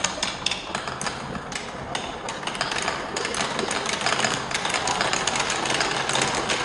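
Marbles rolling and clattering down a wooden marble run: a dense run of small clicks and knocks over a steady rolling rumble.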